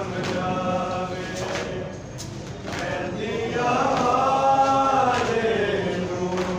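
Men chanting a noha, a Shia lament, in long drawn-out sung lines, with the sharp slaps of matam, hands striking chests, landing every half second to a second.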